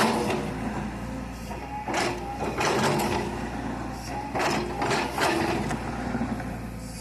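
Hydraulic excavator running steadily while it works, with rushing surges that come in pairs about every two and a half seconds over the constant engine hum.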